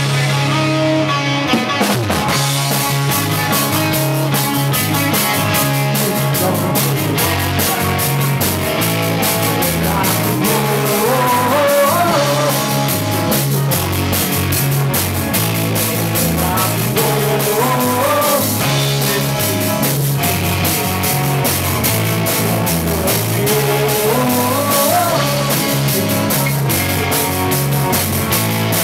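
Live rock band playing: drum kit, electric guitars and bass, with a melodic line that climbs in pitch three times.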